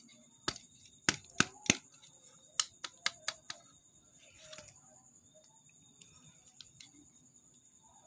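Honda Accord hood latch being worked by hand: a quick series of sharp metal clicks and knocks in the first few seconds, with a brief soft hiss after.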